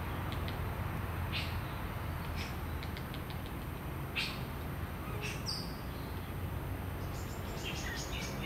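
Short, high bird calls and chips at scattered moments, including a short falling note about five seconds in and a quick run of notes near the end, over a steady low background rumble.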